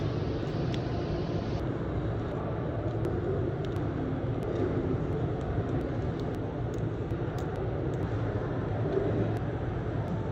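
Steady low rumbling background noise with a few faint, light clicks scattered through it.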